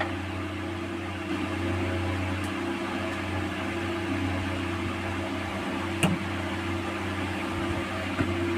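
A steady electrical hum, with one sharp click about six seconds in.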